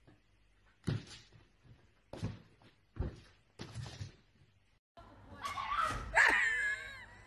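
Kittens pouncing and tumbling on shaggy rugs over a wooden floor, making about five soft thumps. Near the end comes a louder wavering cry.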